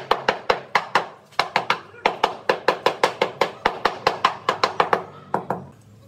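Rubber mallet tapping a ceramic floor tile in quick, even blows, about four or five a second, seating it into the tile adhesive. A short pause comes about a second in, and the tapping stops shortly before the end.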